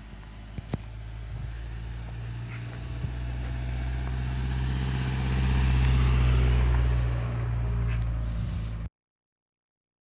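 Car engine and tyre noise, a steady low hum that swells to its loudest about six seconds in and eases off, then cuts off abruptly about nine seconds in.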